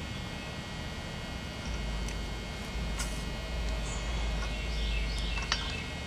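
Steady low background rumble with a few faint bird chirps and a single faint click about three seconds in.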